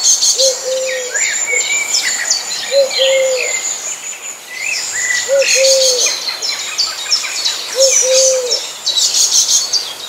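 Several wild birds singing at once: a dense, fast chattering of high chirps and trills throughout, over which a low two-note hooting call, a short note then a longer one, repeats about every two and a half seconds.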